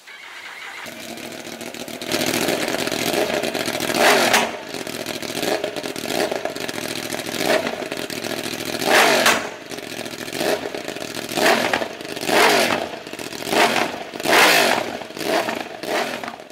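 Yamaha YZF-R1's 998 cc crossplane inline-four running through its stock exhaust, revved in a series of short throttle blips that each fall back to idle.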